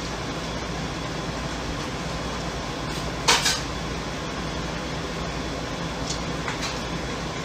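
Kitchen utensils clattering on a counter as a dog paws at it: one loud sharp clatter about three seconds in and two lighter clinks near the end, over a steady low hum.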